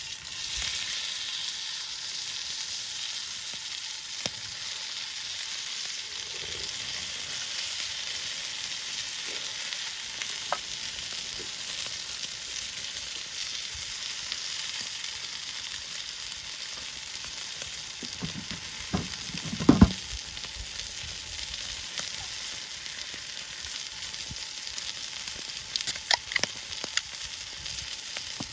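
Food sizzling steadily as it fries in a pan. A couple of dull knocks come just before the two-thirds mark, and a few sharp clicks, like a utensil against the pan, come near the end.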